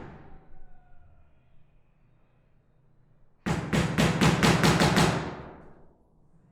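Hammer driving nails into a wooden door. The ring of the last blow fades at first, and after about three seconds comes a quick run of about eight blows, some five a second.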